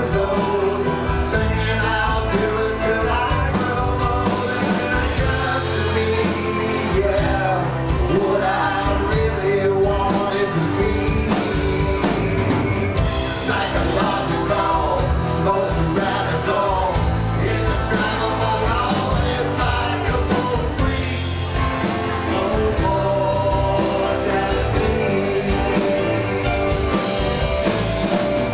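Live rock band playing a song, with two male singers singing together over acoustic guitars, bass and drums.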